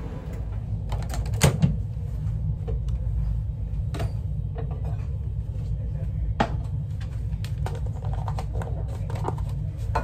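Plastic food containers and kitchenware being handled on a counter: scattered clicks and knocks, the loudest about one and a half seconds in, over a steady low hum.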